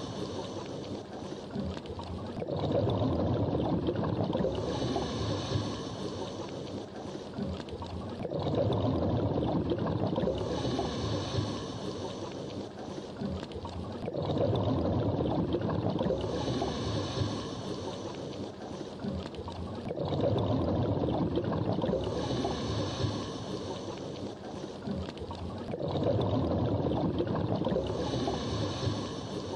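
Scuba diver breathing through a regulator underwater, a breath about every six seconds. Each breath is a few seconds of rumbling exhaled bubbles followed by the short hiss of the demand valve on the inhale, five breaths in all.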